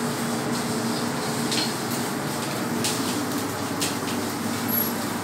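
Steady hum of commercial kitchen machinery, with four faint clinks of dishes spread about a second apart.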